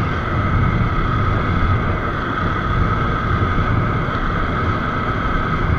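Motorcycle riding at a steady speed: an even engine drone with road and wind noise, picked up by a bike-mounted action camera.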